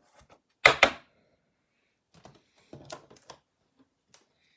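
Trading cards in hard plastic top-loaders being handled and set down: one sharp knock less than a second in, then a few light clicks and taps a couple of seconds later.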